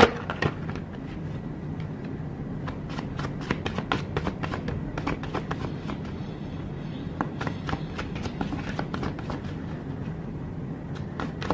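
An oracle card deck being shuffled by hand: a long run of light, quick card clicks and flicks over a steady low hum.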